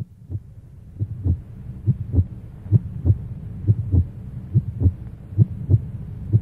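A slow, steady heartbeat sound effect: pairs of dull low thumps, about one pair a second, over a low steady hum. It begins out of silence.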